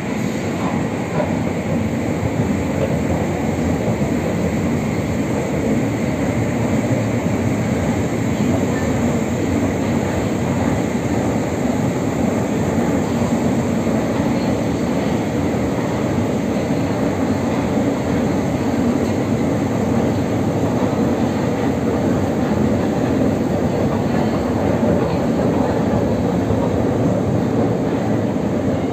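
81-717/714-series metro train running at steady speed, heard from on board: a continuous rumble of wheels and running gear on the rails.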